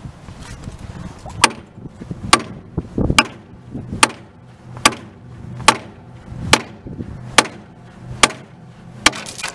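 Hand hammer striking the steel running gear of a 1937 Porter 0-4-0T steam locomotive: about ten sharp blows a little under a second apart, working a pin loose.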